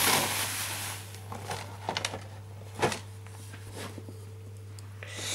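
Rustling and a few light taps as a boxed model kit is handled and moved, over a steady low hum.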